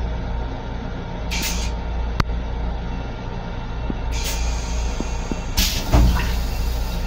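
Steady low rumble of a Long Island Rail Road M7 electric railcar, heard from inside its restroom. Three short hisses of air come about a second in, about four seconds in and near six seconds, the last the loudest with a thump, and there is a sharp click about two seconds in.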